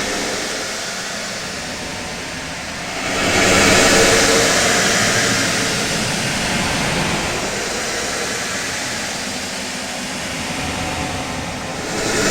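Loud outer-space ambience sound effect: a dense rushing, rumbling drone that swells sharply about three seconds in, then slowly eases off.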